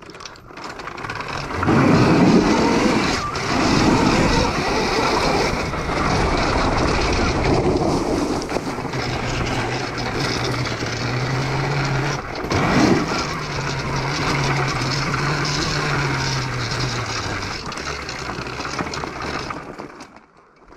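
Homemade electric dirt bike riding over a gravel track: tyres crunching on loose stones and the bike rattling, with heavy knocks over bumps about 2, 4 and 13 seconds in. A low steady hum runs through the middle stretch, and the sound falls away near the end.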